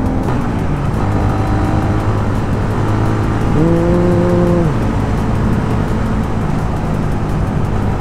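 Suzuki Raider 150's single-cylinder four-stroke engine running under way, with road and wind noise; the engine note drops about half a second in. A steady tone of about a second sounds near the middle.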